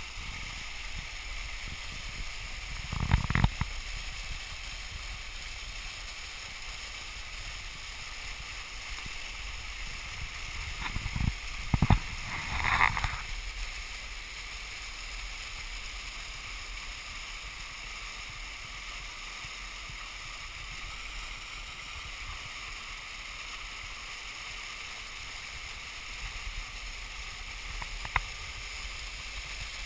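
Small mountain waterfall cascading down a rock face, a steady rushing hiss of falling water. A few brief thumps break in about three seconds in and again around eleven to thirteen seconds.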